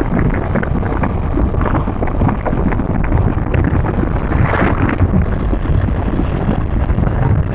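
Wind buffeting the microphone and road noise from a car driving along a paved road: a loud, steady low rumble.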